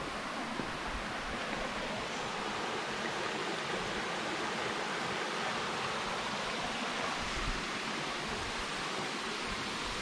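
Shallow stream water rushing steadily over rock slabs and small cascades.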